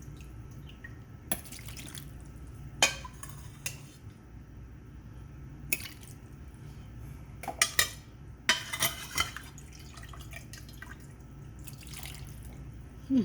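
Boiled carrots, sweet potatoes and their cooking water being poured and spooned into a food processor bowl: wet splashes and drips with scattered clunks against the bowl, over a low steady hum. The processor is not yet running.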